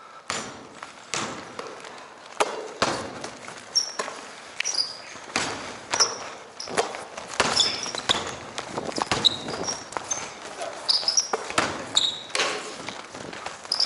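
Basketball bouncing on a hardwood gym floor at irregular intervals, mixed with short high sneaker squeaks and footfalls, echoing in a large indoor gym.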